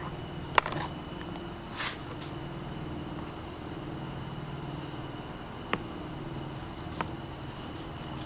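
A few sharp knocks of a knife and fish against a cleaning board, the loudest about half a second in and two more near the end, over a steady mechanical hum like a running motor.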